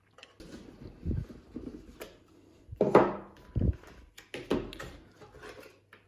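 Handling of a smart lock and its cardboard box: the box is opened and the lock lifted out of its cardboard insert, with a few knocks, scrapes and low thuds on a wooden tabletop, the loudest about three seconds in.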